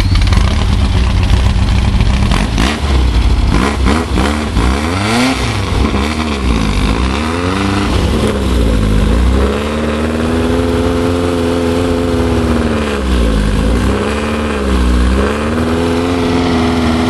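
Rail buggy's VW engine revving hard up and down, again and again, as it labours on a steep climb. Several sharp knocks come in the first few seconds.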